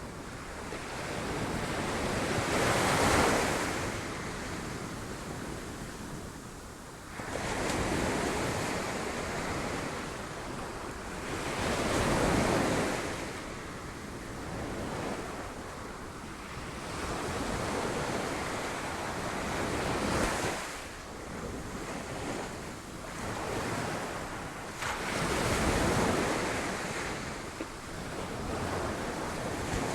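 Sea waves breaking on rocks, the surf swelling and falling back every four to five seconds, with wind blowing on the microphone.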